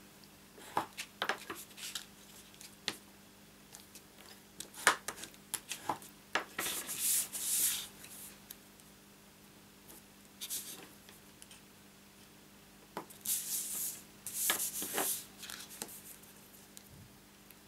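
Cardstock being folded along its score lines and the creases pressed flat by hand: paper rubbing and rustling against the mat, with scattered light taps and clicks. There are a few longer rubbing strokes near the middle and again later on.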